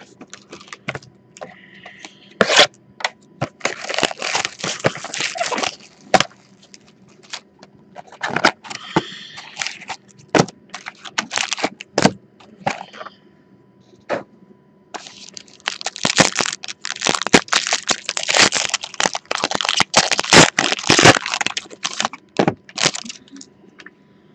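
Foil trading-card pack wrappers crinkling and rustling in the hands, with sharp clicks and scrapes as a cardboard card box is opened and the packs are pulled out, in three bursts.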